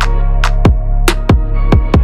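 Electronic background music: steady bass and held synth tones with a regular beat of punchy drum hits that drop in pitch.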